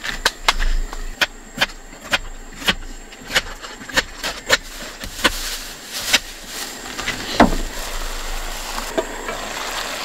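Kitchen knife chopping an onion on a cutting board: sharp knocks a little under two a second for about six seconds. A single louder thump about seven and a half seconds in, then a steady sizzling hiss of chicken and vegetables frying in a gas-grill pan.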